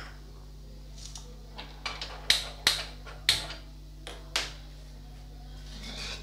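Lifelong glass-top gas stove's igniter clicking as the burner knob is pressed and turned: about nine sharp, irregular ticks that stop about four and a half seconds in, with the burner lit by then.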